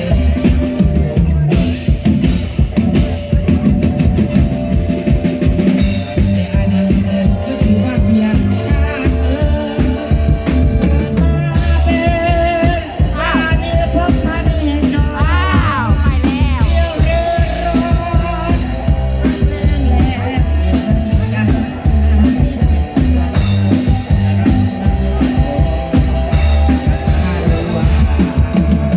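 Band music with a drum kit and bass keeping a steady beat; about halfway through, a lead line slides up and down in pitch.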